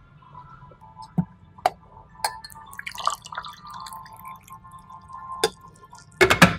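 Tea being poured from a teapot into a tea glass: liquid trickling and dripping, with sharp clinks of glass throughout and a quick cluster of louder clinks near the end.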